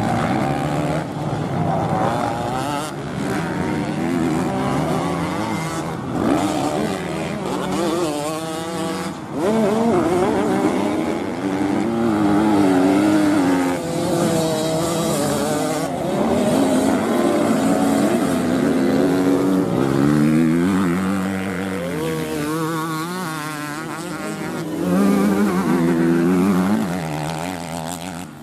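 Several motocross bikes racing. Their engines rev up and down through the gears, overlapping, with the pitch rising and falling as they pass.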